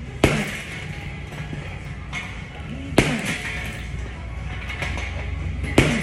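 Boxing gloves striking a heavy punching bag: three hard, single punches spaced about three seconds apart, each a sharp thump with a brief ring after it.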